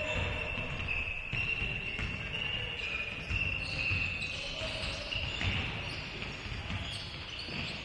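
A basketball being dribbled and bounced on a hardwood court during live play in a large gym, with high squeaks running through it.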